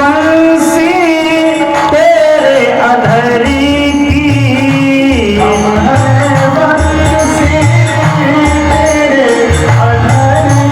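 Devotional bhajan music: a voice singing a melody over held instrumental notes, with a steady drum rhythm underneath.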